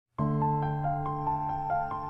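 Calm new-age style background music: a quick, even run of high notes, about five a second, over a held low chord. It starts just after the beginning.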